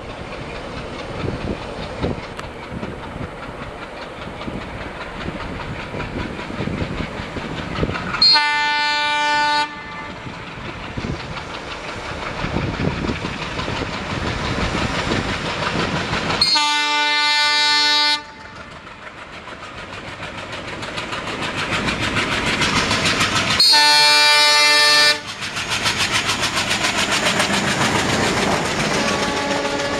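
A WDG 3A Alco-design diesel locomotive hauling a passenger train sounds its multi-tone horn three times, each blast about a second and a half long, while its engine grows louder as it approaches. Near the end it passes close by with its engine running and its wheels running over the rails.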